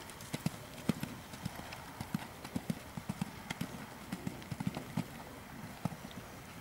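Holsteiner mare's hooves thudding on sand footing at a canter: a quick, uneven run of dull thumps falling in groups.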